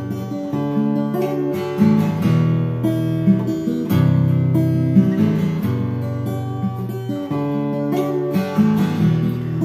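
Acoustic guitar playing an instrumental introduction in strummed chords, the chord changing about once a second.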